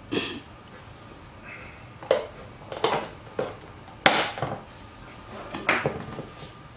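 Irregular clacks and knocks of the hard-plastic parts of a vegetable chopper being picked up, handled and set down on a wooden tabletop, about six in all, the loudest about four seconds in.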